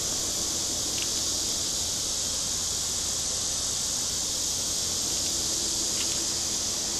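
Steady high-pitched drone of insects in the trees, unbroken throughout, over a faint low rumble.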